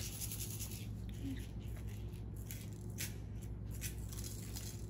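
Sprinkles rattling in a small plastic container as it is handled and its lid is put on, with a few light, scattered clicks over a steady low hum.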